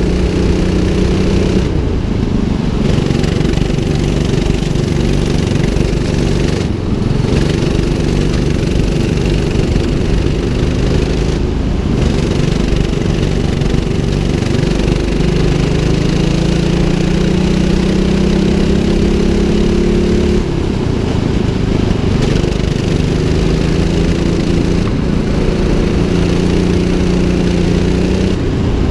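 A 200cc go-kart engine running hard around a track. Its pitch climbs as the kart gathers speed and drops sharply each time the throttle is lifted, about five times.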